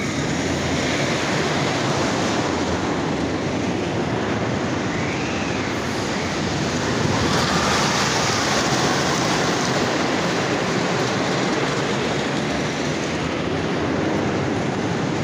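Twister wooden roller coaster train rumbling along its wooden track through the double helix, loudest about halfway through as it passes close by.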